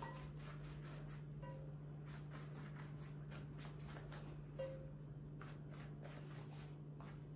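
Silicone pastry brush spreading melted butter over a sheet of dough in faint, quick repeated strokes, over a steady low hum.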